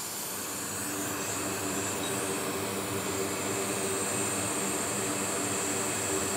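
Steady blowing fan noise from a fume extractor and a hot air rework station. A low hum of a few steady tones comes in about a second in and grows slightly louder.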